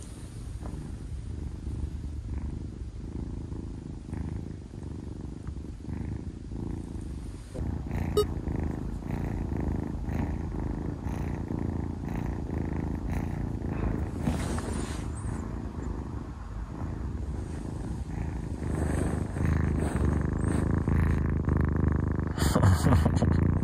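White kitten purring loudly and steadily, close to the microphone.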